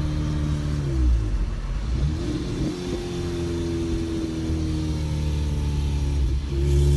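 Acura Integra's four-cylinder engine and exhaust pulling through the gears. The revs drop at a shift about a second in, climb again, hold steady, then dip and rise once more near the end.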